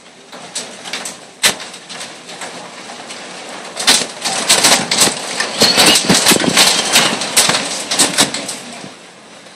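Hailstones pelting down as a dense, irregular clatter of hard impacts. It grows heavier about four seconds in and eases off near the end.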